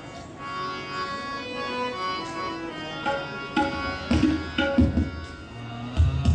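Music made by mouth into a microphone: a pitched melody line, then, from about halfway in, a run of tabla-like drum strokes imitated with the voice, the loudest strokes near the end.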